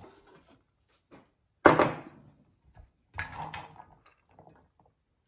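A metal measuring cup scooping pomegranate seeds out of a stainless-steel colander, knocking against it: one sharp knock about a second and a half in, a softer clatter about a second and a half later, and a few light taps.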